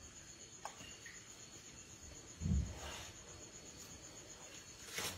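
Crickets chirping in a fast, steady pulse, with a low thud about two and a half seconds in and a short crackle near the end.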